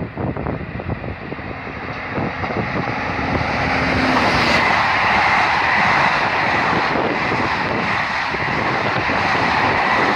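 A passenger train approaches and passes close by. The rumble and rail noise build over the first four seconds or so, then stay loud and steady as the coaches run by.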